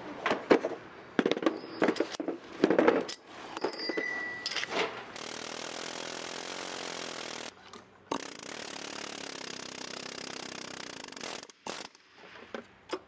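Pneumatic injector puller running in two steady runs of a few seconds each, with a short break between, working a stuck fuel injector out of a BMW 320d GT's four-cylinder diesel engine. Scattered clinks and knocks of the tool being fitted come before.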